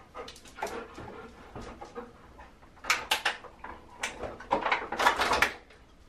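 A service dog tugging a refrigerator door open by a rope on its handle and taking a plastic water bottle from the door shelf: a run of clatters and rustles, loudest about halfway through and again near the end.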